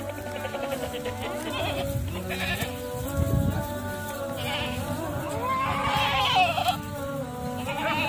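Background music with Totapari and Nagfani goats bleating over it, loudest about six seconds in.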